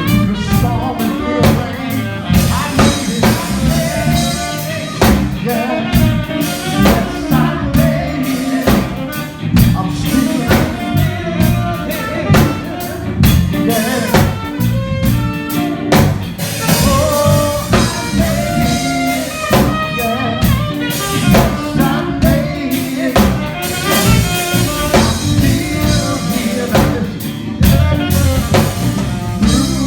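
Band music: a drum kit keeps a steady beat under bass and a melody line, with singing at times.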